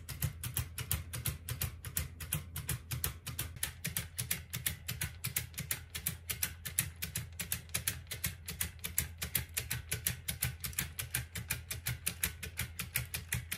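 LEGO Technic spherical tourbillon mechanism running, its escapement ticking fast and evenly, about five ticks a second, over a low steady hum.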